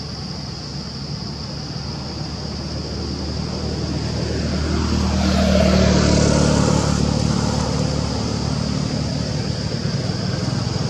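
A motor vehicle's engine approaching and passing on the road. It grows louder to a peak about halfway through, then fades a little.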